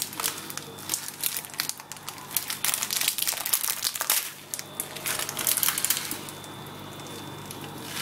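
Clear plastic bag crinkling in quick irregular crackles as a hand handles and opens it, dying down near the end.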